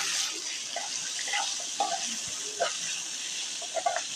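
Hot oil sizzling steadily in a frying pan as onions, curry leaves and chilli powder fry in it for a tadka (baghar), with a spoon stirring.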